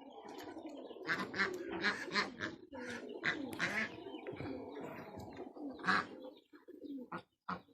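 A flock of domestic ducks calling, many short calls overlapping one another.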